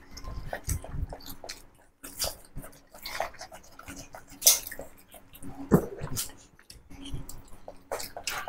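Close-miked eating sounds: chewing and lip-smacking over rice, chicken curry and boiled eggs eaten by hand, a string of wet mouth clicks with two louder sharp sounds about four and a half and six seconds in.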